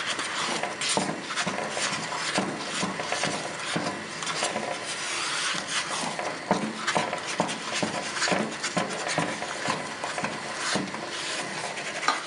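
Wooden spoon working stiff sadza (thick maize-meal porridge) in a small pot: repeated, irregular scraping and rasping strokes as the thickened porridge is pressed and turned against the pot's sides.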